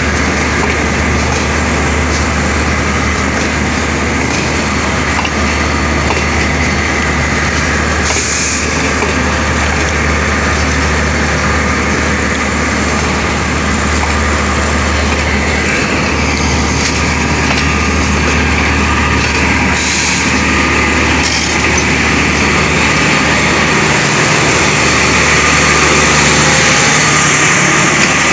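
Steady low diesel drone of the train's engine and power-van generator running while it stands at the platform, with a few short hisses of air about 8 and 20 seconds in.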